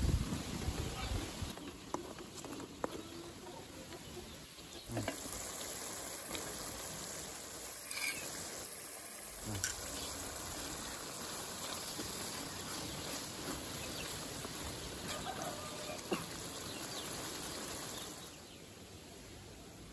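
A wooden spatula stirring curry in a steel pan, with a few dull knocks against the pan, the loudest right at the start. Behind it runs a steady outdoor background with an occasional short bird call.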